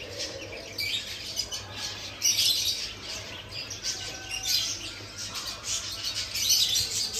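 Many caged birds chirping and squawking at once, with short, high calls overlapping throughout.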